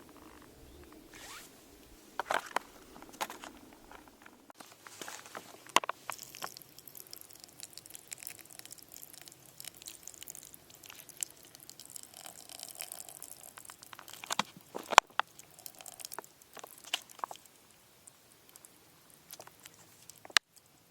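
Irregular handling noises: scattered sharp clicks and knocks with soft rustling, the loudest knock about fifteen seconds in.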